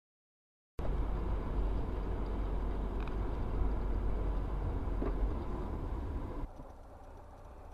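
Steady low rumble of a car driving, heard from inside the cabin through a dashcam microphone. It starts suddenly out of silence about a second in and drops to a quieter steady hum about six seconds in.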